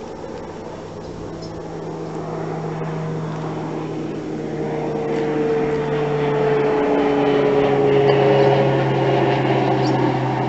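Airplane passing overhead: a steady engine drone that grows louder throughout, its pitch sinking slightly in the second half.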